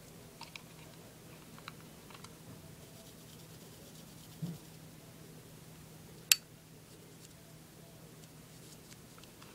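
Faint scratching and small clicks of a cotton swab worked inside the rails of a full-metal airsoft Colt M1911A1 pistol frame, with one sharp click about six seconds in, over a low steady hum.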